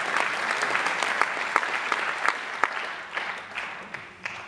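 Audience applauding, the clapping dying away towards the end.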